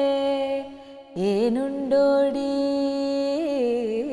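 A woman singing a slow Malayalam song unaccompanied, holding long drawn-out notes with a slight waver. One note ends, and after a short breath she comes in on a new long note about a second in.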